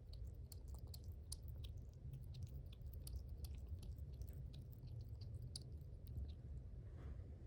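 A small pet chewing dry food: rapid, crisp clicks of teeth, several a second, over a steady low hum. The chewing is extra loud, and the owner wonders whether it points to a problem with its teeth.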